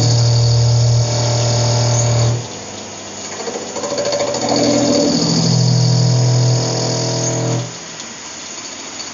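CNC lathe running under power, a loud steady buzzing hum with a rattling mechanical noise over it, in two stretches that each cut off abruptly, about two seconds in and near the end, with the machine running quieter in between.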